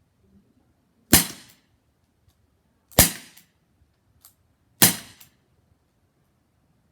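Crosman SNR 357 CO2 BB revolver fired three times in double action, about two seconds apart. Each sharp pop is followed by a fainter click.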